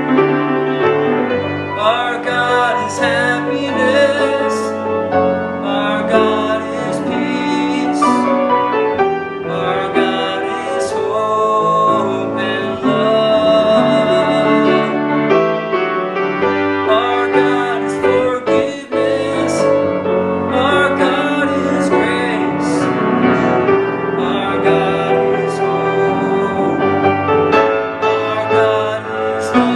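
Piano playing a pop worship ballad with a man singing over it, his voice held in long notes with vibrato.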